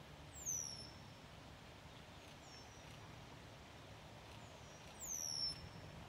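Ducklings peeping: short, high calls that slide downward in pitch, two louder ones about half a second in and near the end, with fainter ones in between, over a faint steady low background hum.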